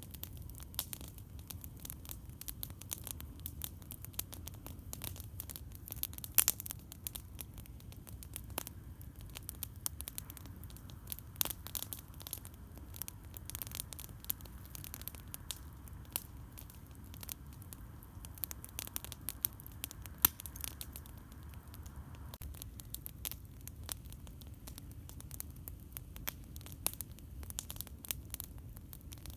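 Campfire crackling: irregular sharp pops and snaps, with two louder pops about six and twenty seconds in, over a steady low rumble.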